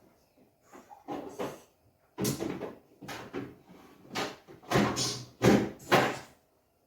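A series of knocks and thuds as a refrigerator door and its contents are handled and an item is put away, loudest in the second half.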